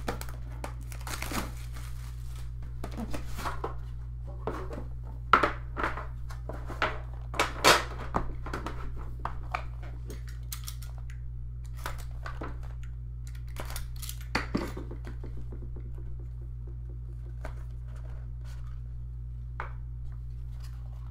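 Clear plastic shrink wrap torn off a cardboard trading-card box and crinkled in the hand, then the box lid handled: a run of sharp crackles and taps that thins out after about 15 seconds. A steady low hum lies underneath.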